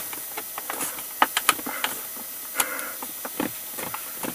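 Plastic dashboard trim panel being handled and pressed back into its clips: scattered light plastic clicks and knocks.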